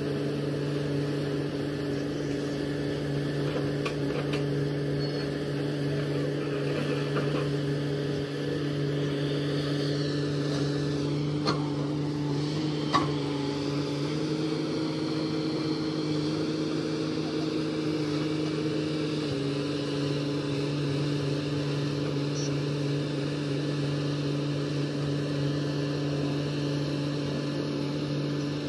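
Komatsu PC-series hydraulic excavator's diesel engine running steadily while digging. Its pitch steps up slightly for a few seconds in the middle, and there are two sharp knocks about a second and a half apart near the middle.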